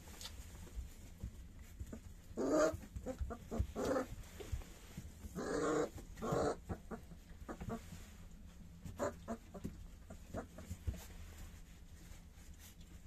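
Three-week-old puppies whining in short, high cries, several in a row in the first half, then a few smaller squeaks and scratching sounds as they crawl over the bedding.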